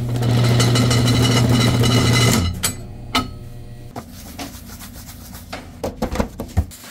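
A bakery dough divider machine runs with a loud, steady hum for about two seconds and then stops. Gloved hands then round small balls of bun dough against a steel bench, making soft rubbing and scattered light knocks.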